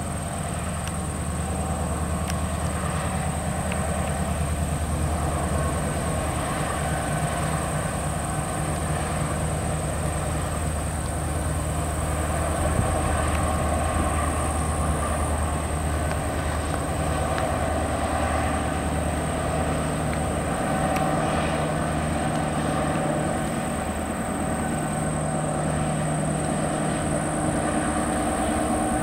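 Two Norfolk Southern EMD GP38-2 diesel-electric locomotives pass at a steady pace, their 16-cylinder diesel engines running with a low, even hum over the rumble of the train rolling on the rails.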